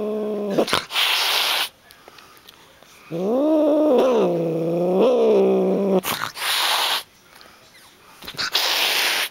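Angry black-and-white tuxedo cat giving low, wavering warning yowls and hisses: a short yowl at the start, a hiss about a second in, a long yowl of about three seconds, then two more hisses, one around six seconds in and one near the end. These are the warning sounds of a very upset, defensive cat.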